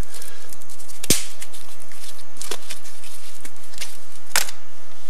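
Twigs of a stick figure snapping: four sharp cracks, the loudest about a second in and another near the end, with small crackles between them over a loud, steady hiss.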